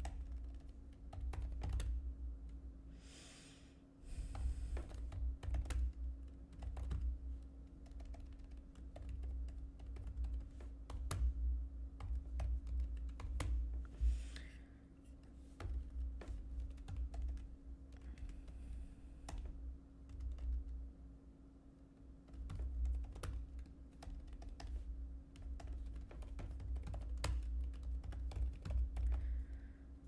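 Typing on a computer keyboard: quick, irregular key clicks in runs with brief pauses. A faint steady hum runs underneath.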